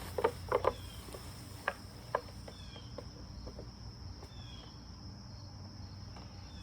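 Crickets chirring steadily in the background. About five light knocks and clicks in the first two seconds or so, from parts of a Halloween animatronic prop being handled.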